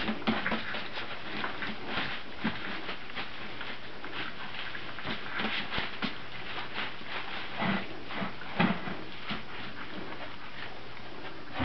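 A Brittany puppy tugging and chewing at a plastic garbage bag: the plastic crinkles and rustles in irregular bursts, with a few short puppy vocalisations.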